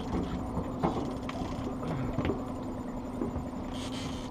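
Boat's outboard motor running steadily at low trolling speed, an even hum, with a brief hiss near the end.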